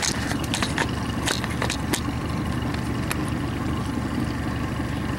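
A vehicle engine idling steadily, with a few light clicks and knocks in the first two seconds.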